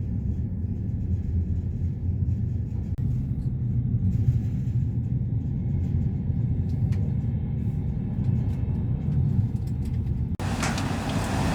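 InterCity train running at speed, heard from inside the carriage as a steady low rumble with a few faint clicks. Near the end the sound cuts briefly and comes back with more hiss.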